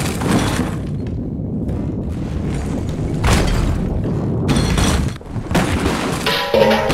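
Cartoon sound effects: a continuous deep rumble broken by several heavy booming crashes. Near the end a few held musical tones come in.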